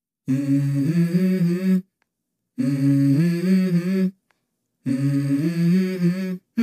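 Background pop music: a short hummed vocal melody, played three times with abrupt dead silences between.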